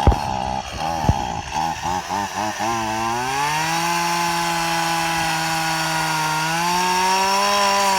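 Two-stroke Stihl chainsaw engine sputtering unevenly just after a starter pull, then catching and revving up. It holds at high revs, rises once more, and starts to drop off right at the end.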